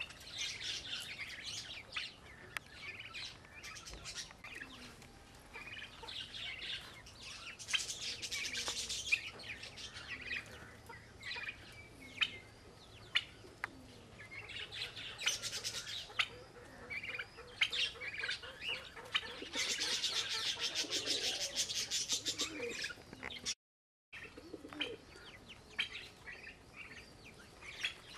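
Birds chirping and twittering: many short high calls, with a few quick chattering runs, the longest about 20 seconds in. The sound cuts out briefly about 23 seconds in.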